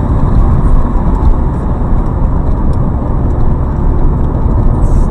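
Steady road and engine noise of a moving car, heard from inside the cabin, with a low rumble throughout.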